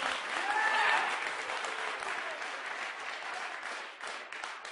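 Audience applauding: dense clapping that slowly dies down, with a few faint cheers about a second in.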